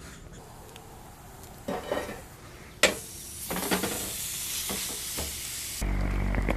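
Meat cooking in a hot pan: a few knocks of pan and utensil and a sharp clack, then sizzling from about halfway through. A low steady hum comes in near the end.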